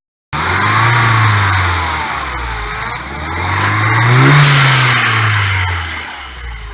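Turbocharged 1.6-litre four-cylinder of an R56 Mini Cooper S revved twice and let fall back each time. At the top of the second rev a hiss of air vents through the newly fitted blow-off valve adapter as the throttle closes.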